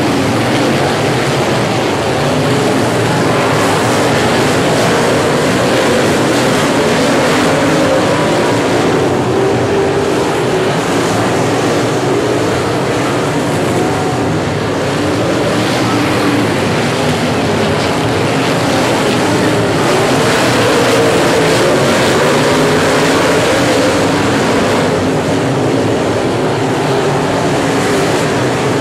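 A pack of dirt-track race cars running laps, their engines making a loud, continuous mixed roar. The engine pitch rises and falls as cars come off and into the turns.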